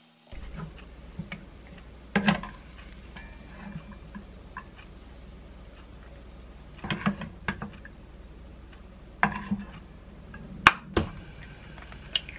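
A wooden spatula knocking and scraping against a ceramic-coated frying pan as fried rice is scooped out to serve. There are sharp taps about two seconds in, a few more around seven seconds, and a cluster near the end, over a low steady hum.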